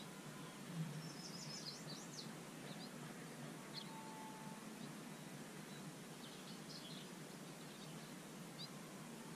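Quiet outdoor ambience: a steady faint hiss with small birds chirping now and then, a quick run of chirps about a second in and a few more later.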